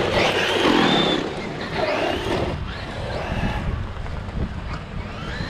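Electric RC monster truck's motor revving in bursts, its whine gliding up and down in pitch, loudest in the first second and again about two seconds in, over wind rumble on the microphone.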